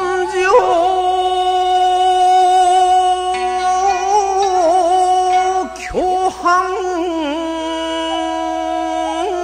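Shigin chanting over backing music: one voice holds a long note with small wavering turns for about five seconds, breaks briefly about six seconds in, then takes up a second long held note slightly lower.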